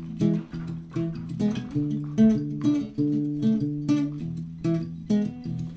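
Acoustic guitar playing the instrumental introduction of a coco song, chords strummed in a steady rhythm.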